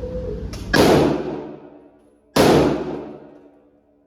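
Two gunshots about a second and a half apart, each cracking sharply and then fading over about a second of echo.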